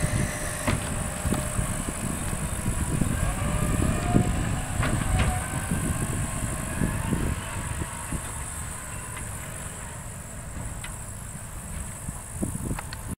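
A dump truck driving away over rutted, muddy ground, its diesel engine running with a low rumble that fades as it goes. A few knocks from the body sound as it rolls over the bumps.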